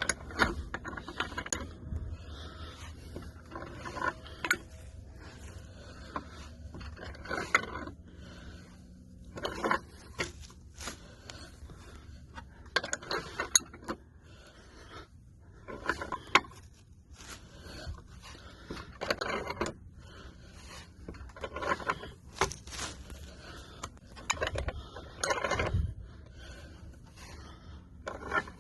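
Irregular scraping and mechanical rattling in short bursts, one every second or two, of hardware being handled and worked by hand.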